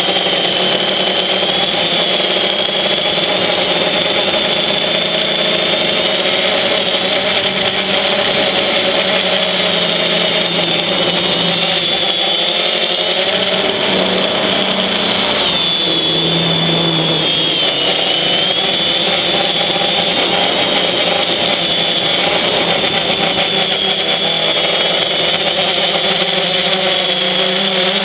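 FPV quadcopter's electric motors and propellers whirring, heard close up from the camera on board. The whine rises and falls with the throttle, most of all in the middle.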